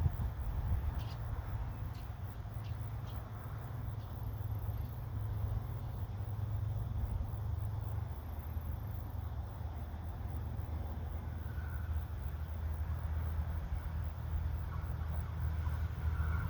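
Wind buffeting the microphone, a steady low rumble that rises and falls. Near the end, the faint sound of an approaching train begins to come in.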